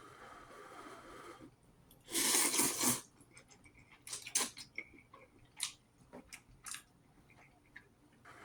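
Close mouth sounds of a person eating ramen and broccoli: chewing with scattered short wet clicks and crunches, and one loud rush of noise lasting about a second, about two seconds in.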